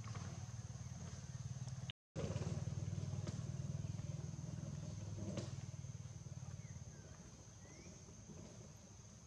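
A low engine rumble that fades away over the last few seconds, under a steady high insect drone. The sound drops out briefly about two seconds in.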